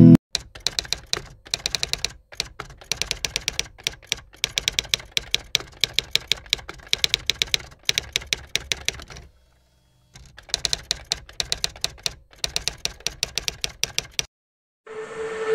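Typewriter typing sound effect: fast runs of clacking keystrokes broken by short pauses, stopping for about a second just after the middle. Music swells in just before the end.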